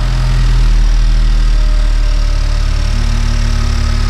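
2021 Honda Civic Type R's turbocharged 2.0-litre four-cylinder idling steadily just after start-up, breathing through a newly fitted PRL high-volume intake.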